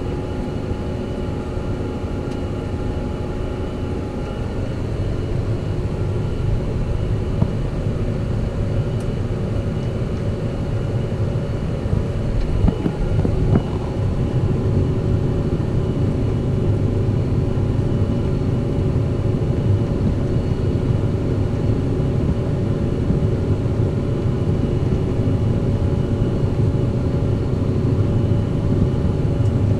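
Fendt 718 Vario tractor's six-cylinder diesel engine running steadily under ploughing load, a low drone with a steady whine above it and a couple of faint knocks about halfway through.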